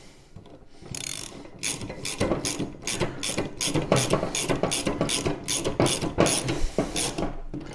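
Ratchet wrench clicking as nuts are run down onto bolts: a quick even run of clicks, about three or four a second, starting about a second in.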